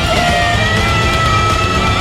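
Background music: loud rock or metal with distorted electric guitar over a fast, steady beat.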